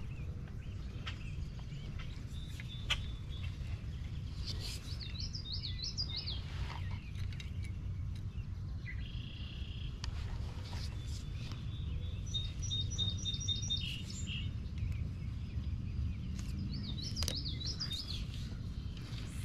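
Songbirds singing: a phrase of quick wavy high notes about five seconds in and again near the end, and a run of short repeated notes around the middle, over a steady low rumble.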